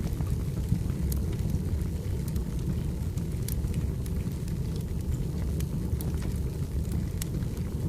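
Wood fire burning, crackling with scattered sharp pops over a steady low rumble.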